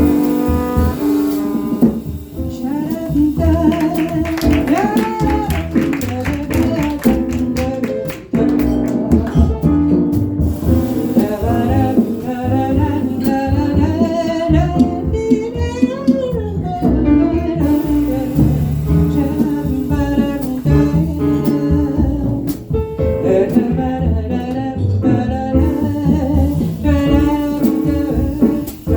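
Live jazz band playing a slow, moody tune: a woman singing the melody over piano, upright double bass and drums.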